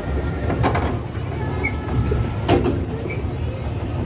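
Steady low rumble of a swan boat moving across the water, with a sharp knock about two and a half seconds in and a smaller one near the start.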